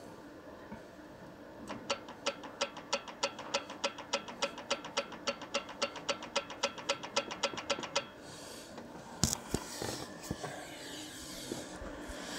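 A rapid, very even run of metallic clicks, about six a second, from work on an opened Opel Zafira F35 gearbox and its clutch. It stops suddenly after about six seconds, followed by handling noise and a knock.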